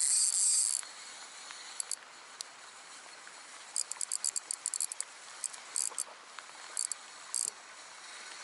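Insects chirping: a sustained high trill for under a second, then bursts of short, rapid high-pitched chirps, over a faint outdoor hiss.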